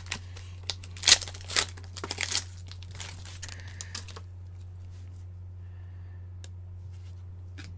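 A plastic trading-card pack wrapper being torn open and crinkled by hand, crackling for about four seconds, loudest just after a second in. Afterwards only a few faint clicks over a steady low hum.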